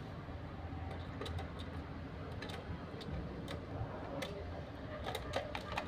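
A small screwdriver driving the battery-cover screw into a plastic remote-control transmitter, with faint, irregular clicks and ticks of metal on plastic as the remote is handled.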